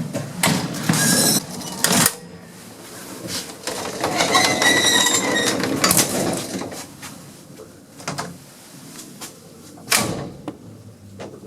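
The metal folding gates of an old gated passenger lift being slid across by hand, rattling and shutting with a sharp clang near the start and again near the end. In the middle, a sustained metallic squeal rings for about two seconds.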